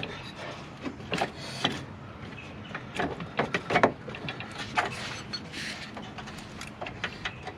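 Irregular clicks, knocks and a brief scrape as a car's AC condenser is pushed and worked into its plastic mounting pieces, a tight fit that doesn't go in easily.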